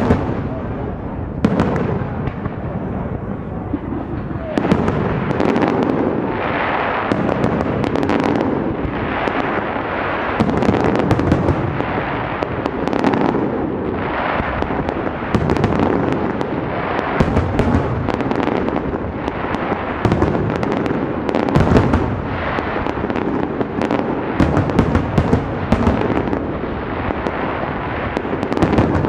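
Aerial firework shells bursting in a fireworks display, many bangs in quick succession with no pause.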